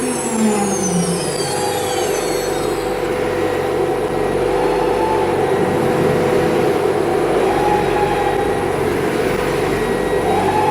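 EagleTec EA-1212LATC 4x4 CNC router with an HSD tool-change spindle, running during a routing test. A whine falls in pitch over the first second or two, then the machine keeps up a steady hum.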